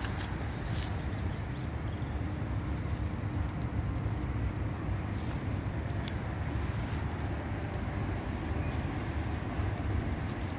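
Steady low outdoor rumble, with faint scattered clicks from a cat eating out of a clear plastic tray.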